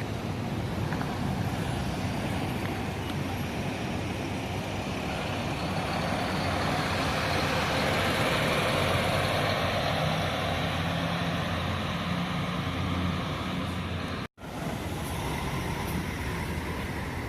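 Diesel intercity coach bus engine running as the bus drives past, growing louder to a peak about halfway through and then easing off. The sound drops out for an instant about three-quarters of the way through.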